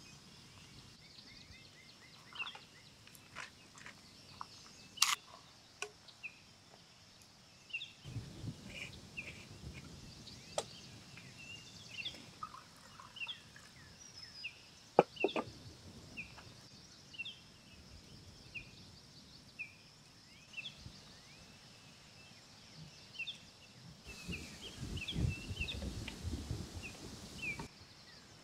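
Outdoor ambience with short bird chirps repeating through most of it, a few sharp clicks and knocks, the loudest about halfway through, and a few seconds of low rumbling noise near the end.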